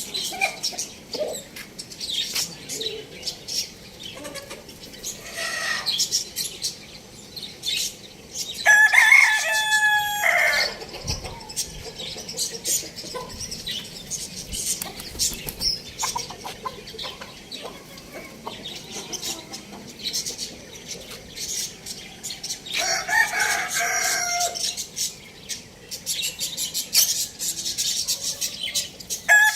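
Rooster crowing twice, each crow lasting about two seconds, with chickens clucking and short sharp high sounds in between.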